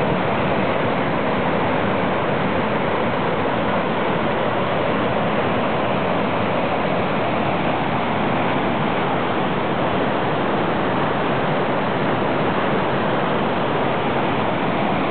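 Waterfall and whitewater rapids pouring over boulders and ledge rock: a loud, steady rush of water.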